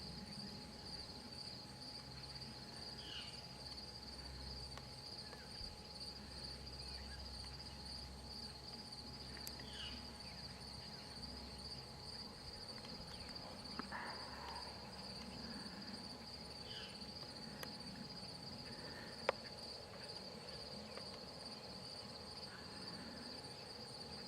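Crickets chirring steadily in a continuous high trill. A faint low hum comes and goes underneath, with a few short chirps and one sharp click about nineteen seconds in.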